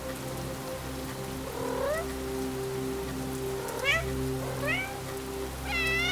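A cat meowing four times in short calls that rise in pitch, the last one longer. Steady rain and soft held notes of sleep music run underneath.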